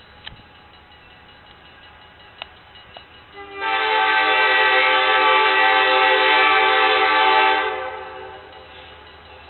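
Locomotive #216's horn sounds one long blast of about four seconds, starting about three and a half seconds in, as the train nears a road grade crossing: the standard crossing warning.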